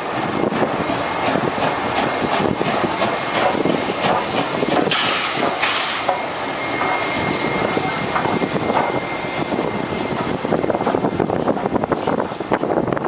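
NSWGR C36-class steam locomotive 3642 running past: steady steam exhaust and hiss with clattering of wheels and rods, and a louder rush of steam about five seconds in.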